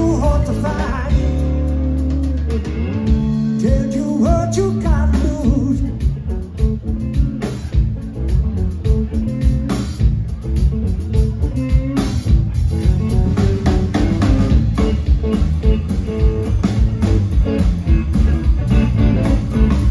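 Blues-rock trio playing live: electric guitar with bending notes over bass guitar and drum kit. The drums drive a fast, steady beat from about six seconds in.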